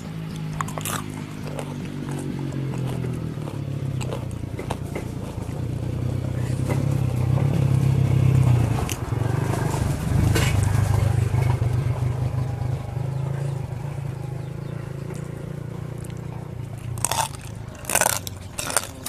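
A steady low droning hum that swells in the middle, then crunchy bites and chewing of som tam with raw field crab near the end.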